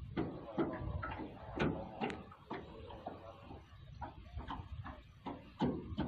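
Light knocks and clicks around a small wooden boat on the water, irregular, about two a second.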